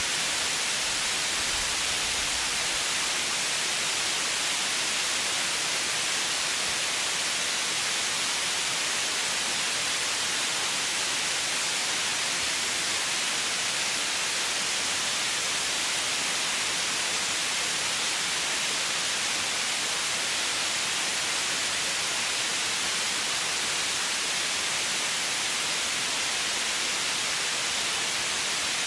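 Steady white noise: an even hiss, strongest in the upper range, that does not change.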